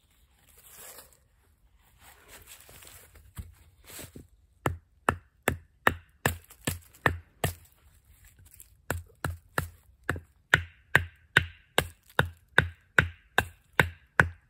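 A short log used as a mallet knocks a whittled wooden tent peg into the ground: about twenty sharp wood-on-wood knocks, two or three a second, in two runs with a short pause about halfway, the later knocks louder.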